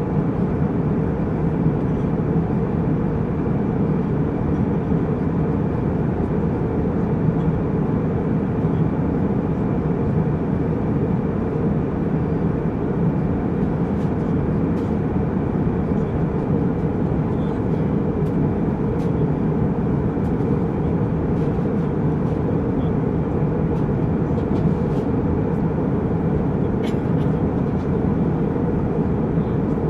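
Jet airliner cabin noise in flight: the engines and rushing air make a steady, even low hum that never changes. A few faint small ticks come through in the second half.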